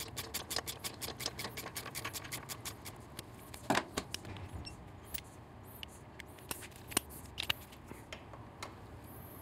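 Ratchet with an 8 mm Allen bit clicking rapidly, about five clicks a second, as it runs down a motorcycle exhaust header bolt; the clicking stops about three seconds in. A single louder metallic clank follows, then scattered light tool clicks and taps.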